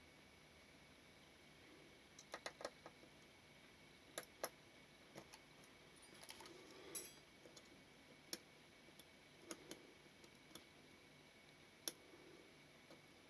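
Faint, irregular small metallic clicks and ticks of tweezers and a small screwdriver against the parts of a leaf shutter mechanism as a screw and spring are fitted: a quick run of clicks about two seconds in, then single ticks every second or two.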